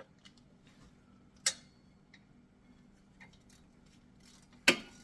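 A few sharp metal clicks and clinks of brake parts and tools being handled during caliper reassembly: one about a second and a half in, and a louder one near the end.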